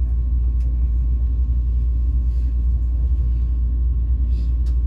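A steady low rumble, with a faint steady tone above it.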